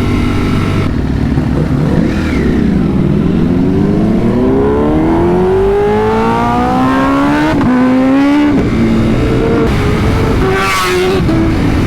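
Motorcycle engine on the move. Its pitch drops, then climbs steadily as it accelerates hard, with gear changes near the end of the climb, then it settles lower, over a steady wind and road rush.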